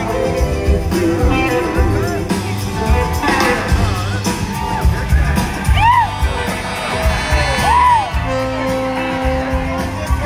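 Live blues-rock band playing, recorded from among the audience: electric guitar notes bending up and down in pitch over bass and drums, with a few audience whoops.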